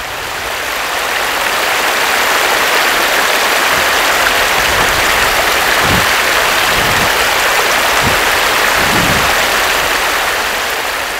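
Steady rush of flowing river water, an even splashing hiss that fades in over the first couple of seconds and fades out near the end.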